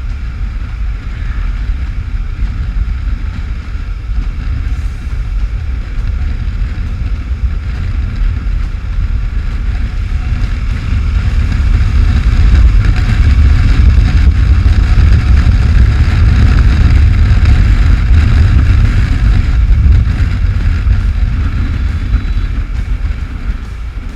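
Wind buffeting the microphone over the running engine and road noise of a Suzuki V-Strom 650 motorcycle on the move, a heavy low rumble that grows louder about halfway through and eases near the end.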